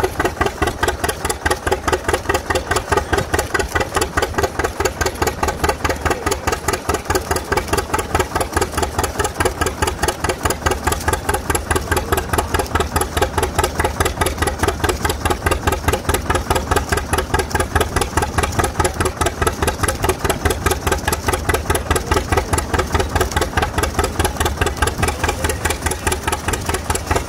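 John Deere Model A's two-cylinder engine running steadily under load, driving a Baker fan through a flat belt, with a rapid, even popping exhaust beat. It is being worked in after recent engine repairs.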